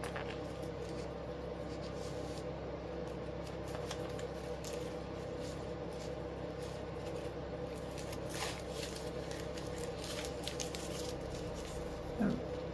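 Polypropylene ribbon crinkling and rustling as it is handled and tied in a knot, in small irregular crackles over a steady background hum.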